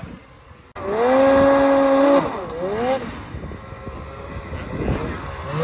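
Snowmobile engine running hard as the sled ploughs through deep snow. A steady high note cuts in about a second in. Between two and three seconds in the revs drop and climb again, then the engine runs quieter and uneven, rising once more near the end.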